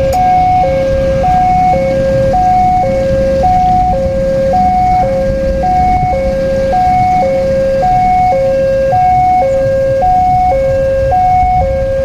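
Railway level-crossing warning alarm sounding a two-tone electronic signal, alternating high and low about every half second. It means a train is approaching or passing. A steady low rumble runs underneath.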